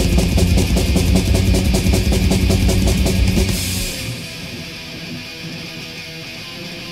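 Thrash metal band playing at full tilt, distorted guitars over fast, even drumming, that breaks off about three and a half seconds in. A much quieter, sparse guitar passage follows.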